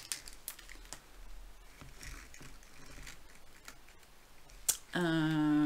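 Light clicks and soft rustling of a plastic-covered diamond painting canvas being handled while it is measured with a measuring tape. About five seconds in, a woman's voice hums a held, steady 'mmm', the loudest sound.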